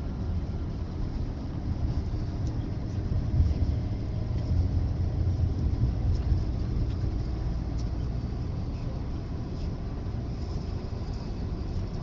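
Steady low rumble of engine and road noise inside a moving vehicle driving along a highway.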